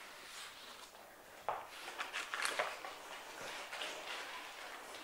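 Faint rustling and handling noises of a person getting into position on an exercise mat, with a soft knock about a second and a half in.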